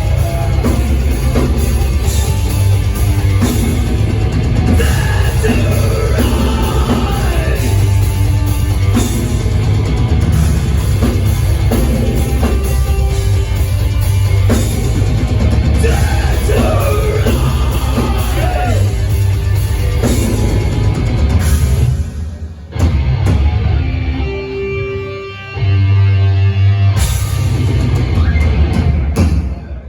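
Heavy metal band playing live: distorted guitars, bass and a drum kit with vocals over them. The music breaks off briefly about three-quarters of the way through, comes back, and stops near the end.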